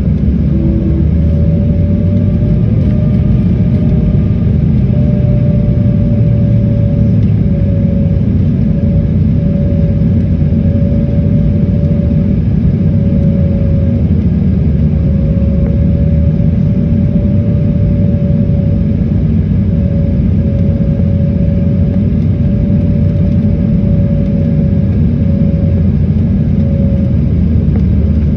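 Embraer E-Jet's 'whale' sound: one long, slightly wavering moaning tone that fades out near the end, over the steady low rumble of the airliner's engines and airflow.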